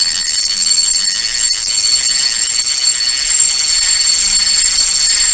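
A loud, high-pitched, steady buzzing ring with a rapid flutter. It fades out and stops just after the end.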